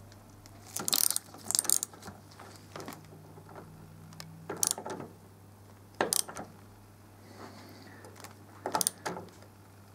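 Hand tools clicking and clinking on a motorcycle's steering stem nuts as the top nut is tightened against a C-spanner holding the bottom nut, bringing it round to line up with the lock washer tabs. About half a dozen short metallic clusters come a second or more apart.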